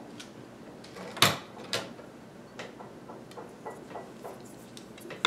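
Half-dollar coins and coin rolls handled on a wooden table: a sharp clack about a second in, a smaller one half a second later, then light ticks and rustling, and another sharp clack at the very end.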